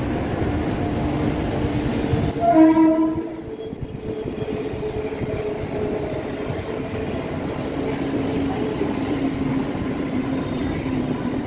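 Mumbai suburban electric local train running past, with steady wheel and running noise on the track. A train horn sounds once, loudly, for about a second, roughly two and a half seconds in.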